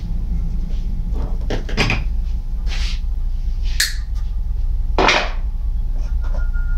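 A few knocks and scrapes of PVC pipe and fittings being handled on a workbench, the loudest about five seconds in, over a steady low hum.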